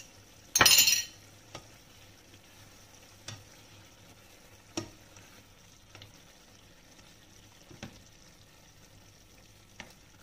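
Pork and mushrooms being stirred and turned in a frying pan with a plastic spatula, the sauce sizzling faintly underneath. One loud half-second burst of noise comes about half a second in, then a few soft knocks of the spatula against the pan.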